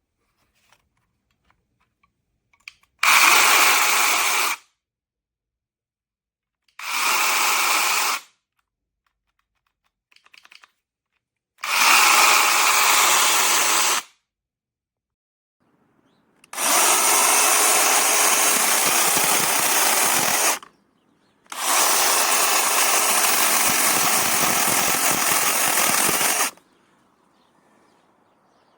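Bosch EasyChain 18V-15-7 cordless mini chainsaw's brushless motor and chain running in five separate bursts, stopping completely between them. The first three are short, one to two and a half seconds; the last two last about four to five seconds each.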